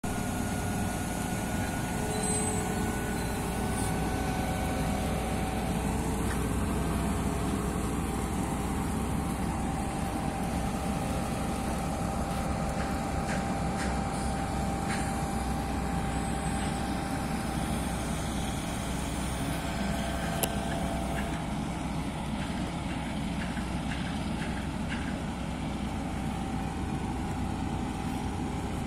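Mobile crane's diesel engine running steadily while it hoists a curved steel tank shell plate, with a steady whine over the low engine hum. A few light clicks, one sharper about two-thirds of the way through.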